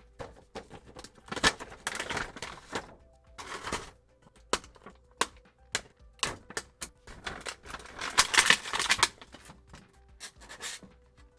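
Action-figure packaging being handled: plastic and cardboard crinkling and rustling in bursts, with sharp clicks and snaps as figures are worked out of their boxes and trays. Soft background music plays underneath.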